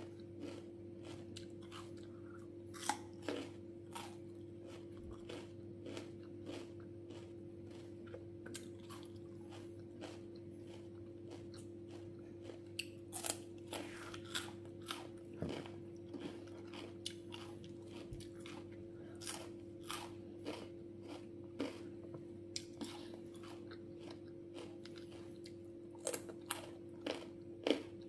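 Close-up mouth sounds of biting and chewing crisp raw fruit pieces: a string of sharp, uneven crunches with wet chewing between them, over a steady low hum.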